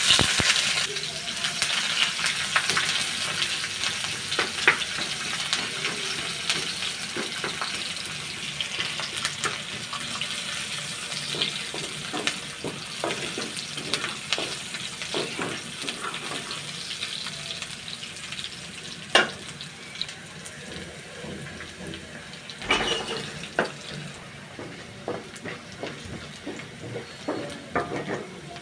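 Sliced onions hitting hot oil in a nonstick wok: a sudden loud sizzle that eases into steady frying. A spatula stirs and scrapes them around the pan, with sharp clicks now and then.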